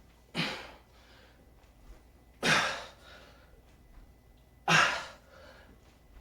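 A man breathing out hard with exertion during a weight-lifting set: three forceful exhalations about two seconds apart, each cut off sharply and fading quickly.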